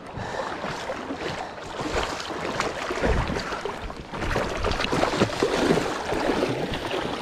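River water splashing and rushing, with irregular splashes from a hooked red salmon thrashing at the surface.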